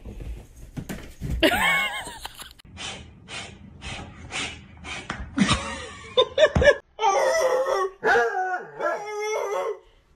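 A dog howling in long wavering calls over the last three seconds. Earlier, short sharp sounds come about twice a second.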